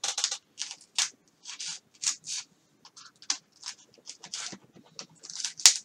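A blade cutting and scraping into a foam wing: a run of short scratchy strokes, about two or three a second, the loudest near the end. The blade is carving out a deep pocket in the foam.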